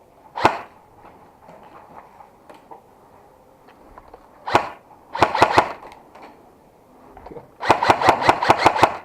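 Airsoft guns firing: a single shot, a second about four seconds later, then a short burst of a few shots and, near the end, a longer rapid burst of about ten shots.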